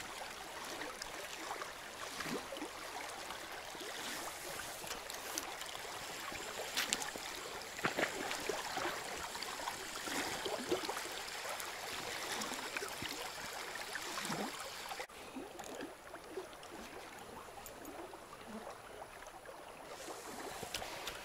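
Shallow, fast-flowing river water rushing over a riffle, a steady even wash with a few faint ticks, dropping a little quieter about two-thirds of the way through.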